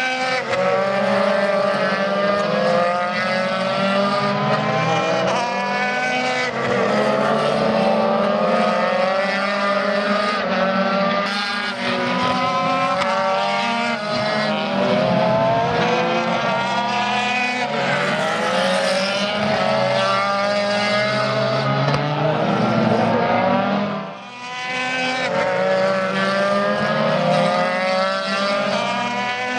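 Formula Renault 2.0 race car engine at high revs, accelerating hard through the gears. Its pitch climbs and then drops back at each upshift, over and over. Near the end the level briefly dips, as on a lift or downshift.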